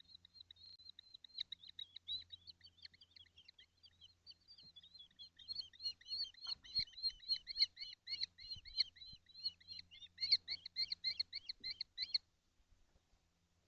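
Kestrel calling in a long series of shrill repeated notes, softer at first, then louder and at about four a second from midway, stopping shortly before the end.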